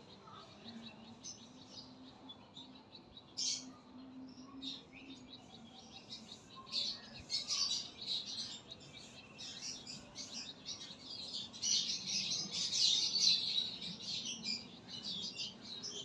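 Small birds chirping and twittering in quick high-pitched runs, busiest about seven seconds in and again around twelve to thirteen seconds.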